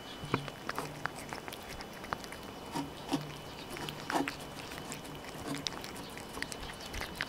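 Two cats eating boiled carp off a plate close to the microphone: wet licking, chewing and smacking with many short clicks. A low rumble from a cat sounds in two stretches, near the start and from about three to five and a half seconds in.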